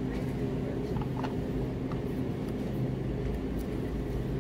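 Steady low machine hum of supermarket cooling equipment in a refrigerated dairy aisle, with a few faint clicks about a second in.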